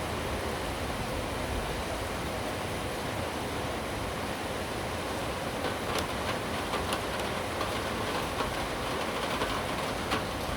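Steady rain with a low rumble underneath; from about halfway in, scattered sharp ticks of drops striking close by.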